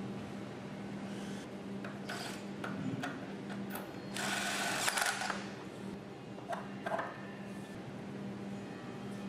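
Bolts, washers and nuts being fitted into cedar-log picnic table legs: scattered clicks and knocks, with a louder rasping whir about four seconds in that lasts just over a second, over a steady low hum.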